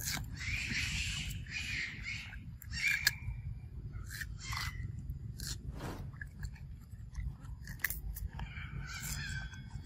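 A macaque biting into a raw cucumber and chewing it: crunching bites in the first couple of seconds, then scattered crunches and smacks as it chews.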